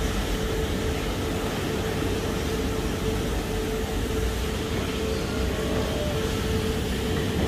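A car-wash vacuum cleaner running steadily: a constant rush of air with a steady hum under it.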